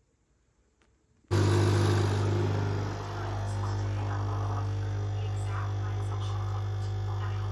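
Electric appliance motor running with a steady low hum and whir, starting suddenly about a second in after near silence.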